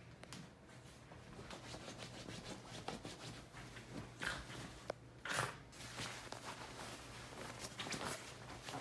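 Duvet and sheets rustling and scuffing as a miniature poodle digs and burrows under the covers, with a louder swish about five seconds in.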